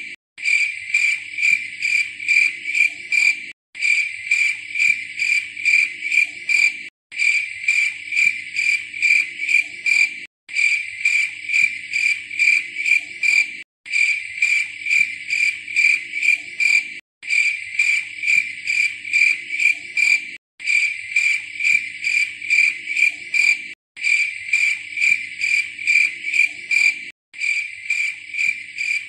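Cricket chirping in quick, even pulses at one high pitch, a short recording looped so that it cuts out briefly and restarts about every three and a half seconds.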